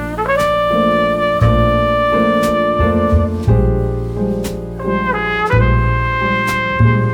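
Background music: a brass lead holds long notes, with a small pitch slide near the start, over a sustained bass line and a beat that clicks about once a second.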